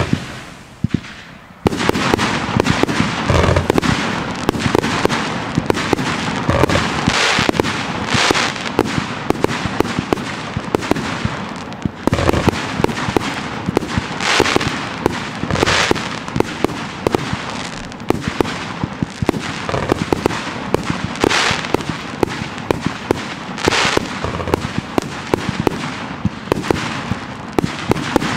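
Professional fireworks display: a single loud bang right at the start, then from about two seconds in a dense, unbroken barrage of shell bursts and crackle.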